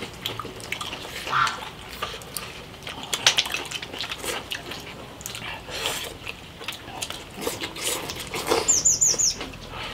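Eating sounds: slurping hot stewed fish and beef tendon from bowls, with chewing and chopsticks clicking against bowls in short, irregular bits. Near the end, a quick run of four high chirps.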